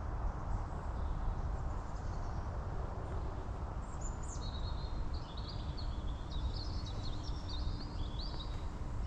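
A small bird singing a run of high chirps and short trills from about four seconds in, over a steady low rumble of outdoor background noise.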